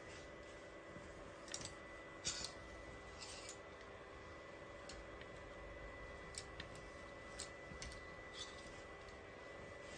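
Plastic clothes hangers clicking and scraping along a metal rail as hanging garments are pushed aside one by one: irregular short clicks with a little cloth rustle, over a steady faint hum.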